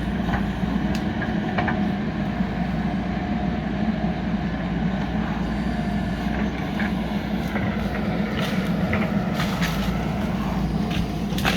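JCB 3DX backhoe loader's diesel engine running steadily, with a scattering of short sharp clicks and knocks, most of them near the end.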